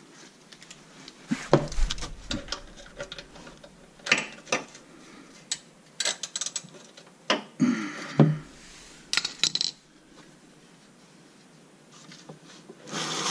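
A wrench clinking and knocking on the 14 mm oil drain plug of a Nissan KA24DE engine's oil pan as it is loosened for an oil change. Irregular metal clicks, scattered singly and in short clusters, with a louder rustle near the end.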